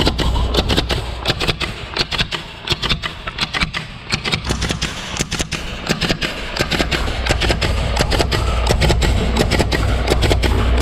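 RapidClip automatic clip-fastening machine at work, its pneumatic head firing clips in quick succession: sharp, irregular shots, several a second, over a steady low machine hum.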